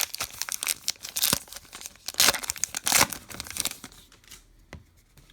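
Baseball card pack wrapper being torn open and crinkled: a run of crackling rips, loudest a couple of seconds in, fading out about four seconds in.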